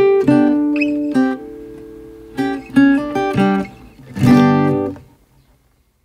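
Background music on acoustic guitar: plucked notes, then a final strummed chord about four seconds in that rings out and fades to silence.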